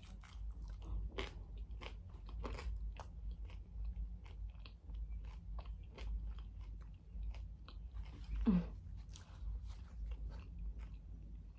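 Crunching and chewing of a crisp fried corn tostada shell topped with ground chicken, guacamole and sour cream: a steady run of small crackles with a few louder bites.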